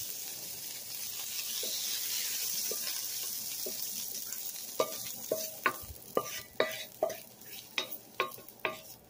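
Snow peas and garlic sizzling in a hot stainless steel wok, the sizzle fading over the first few seconds. Then about ten sharp, ringing knocks a little under half a second apart as the peas are scraped out of the wok with a wooden spatula into a glass bowl.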